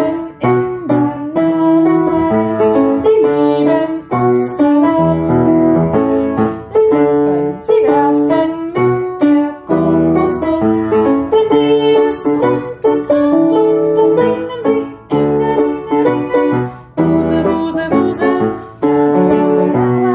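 Piano playing a children's song, a melody over chords in an even rhythm.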